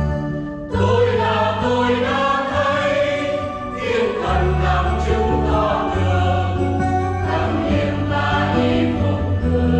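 Mixed church choir singing a Vietnamese Easter hymn, accompanied by electronic keyboard with deep sustained bass notes and acoustic guitar. The choir comes in strongly less than a second in, after a brief instrumental passage.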